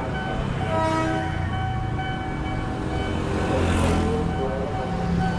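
Passing train: a steady low rumble under several held tones, with a hiss that swells about four seconds in.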